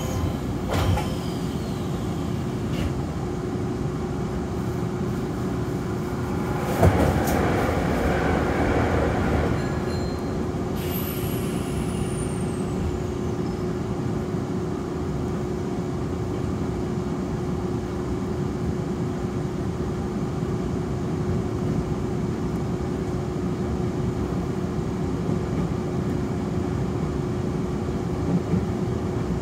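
Nankai electric commuter train running, heard from inside the car: steady running noise over a constant hum. About seven seconds in, a louder rushing noise swells and lasts a few seconds, and a faint high whine glides down in pitch a little later.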